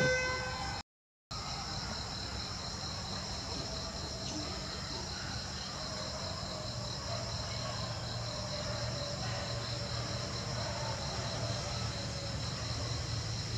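Insects chirring in a steady chorus, two high pulsing tones that run on unbroken. The sound drops out completely for about half a second, a second in.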